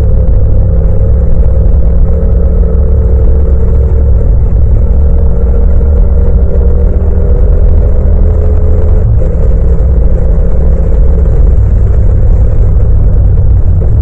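Yamaha MT-07's 689 cc parallel-twin engine running steadily under load, the motorcycle cruising in fourth gear, with a deep rumble.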